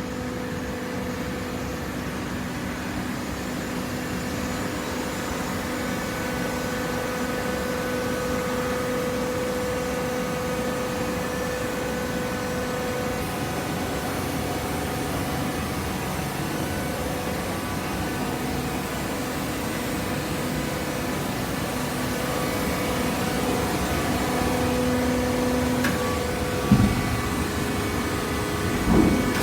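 Hydraulic waste-paper baler running, its pump motor giving a steady hum, with two short knocks near the end.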